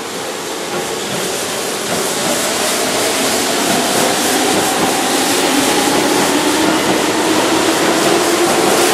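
Keihan electric commuter train pulling out of the platform, its motor whine rising slowly in pitch as it picks up speed, getting steadily louder.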